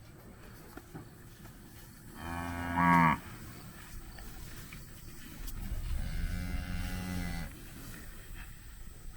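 Beef cattle mooing twice: a short, loud moo that rises at its end about two seconds in, then a longer, softer moo about six seconds in.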